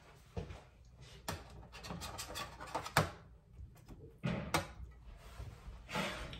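Kitchen handling sounds: a few scattered knocks and scrapes as containers and utensils are moved on a counter, the sharpest knock about three seconds in.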